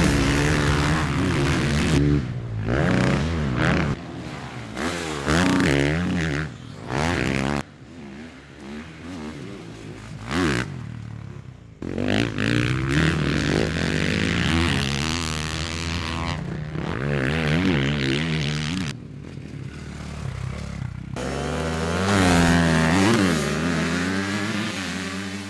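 Motocross dirt bike engines, a 450 among them, revving hard on the track. The pitch climbs and falls again and again as the bikes accelerate, shift and back off, with a few brief lulls.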